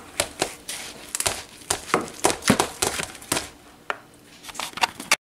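A metal spoon stirring softened ice cream and crushed Oreo cookies in a metal mixing bowl, with irregular clicks and scrapes of spoon against bowl several times a second. The sound cuts off abruptly near the end.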